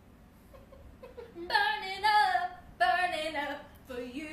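A young woman's voice in long, drawn-out, sing-song phrases, coming in about a second and a half in after a near-quiet start.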